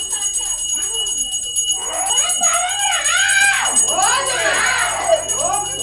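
A hand bell rung rapidly and without pause during aarti, a steady high metallic ringing. From about two seconds in, voices sing a devotional bhajan over it in long rising-and-falling phrases.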